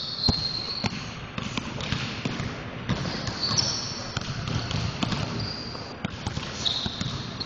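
Basketballs bouncing on a hardwood gym floor in irregular dribbles, with a few short high squeaks.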